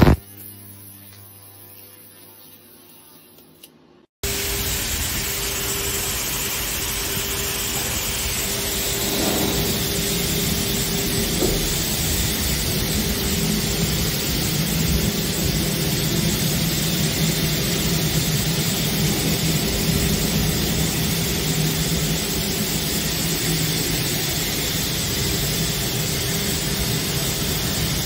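A sharp snap, then a quieter stretch; about four seconds in, a loud steady hiss of a high-pressure water jet spraying against a glass railing starts suddenly and keeps on, with a low steady hum of the pressure washer's pump underneath.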